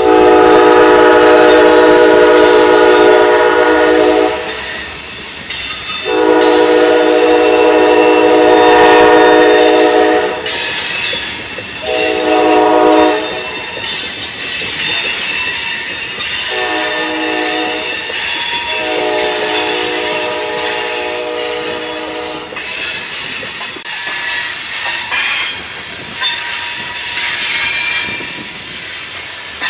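A locomotive horn sounds the grade-crossing signal: two long blasts, a short one, then a final long one. High-pitched wheel squeal from the freight cars rounding the curve carries on under the horn and after it.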